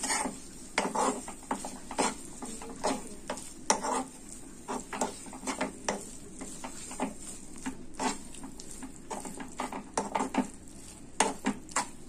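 A metal spoon scraping and clinking irregularly against a non-stick frying pan as a khoya (mawa), sugar and nut filling is stirred and cooked down until soft.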